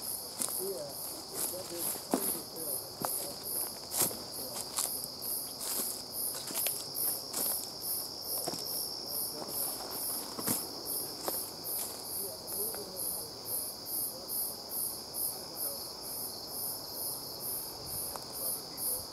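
Insects singing: a steady high trill with a rhythmic, very high chirp about two or three times a second over it. A few footsteps and twig snaps on the trail, mostly in the first half.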